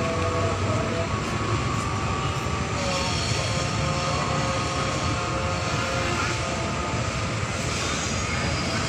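Diesel locomotive approaching along the line, a steady engine drone with a few held whining tones over it.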